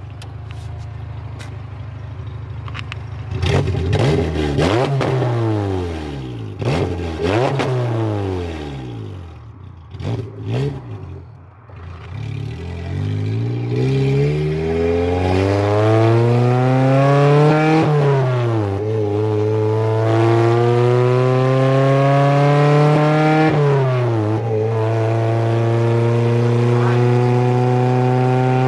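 Honda K20 four-cylinder engine in a K-swapped Civic sedan with a manual gearbox, revving up and down a few times, then pulling hard through the gears. Its pitch climbs in two long sweeps, each broken by a quick drop at an upshift, and it then settles into steady running at higher revs.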